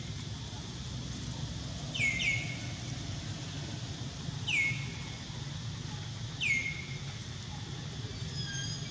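A bird calling outdoors: a short call that falls quickly in pitch, given three times about two seconds apart (the first doubled), over a steady low background noise.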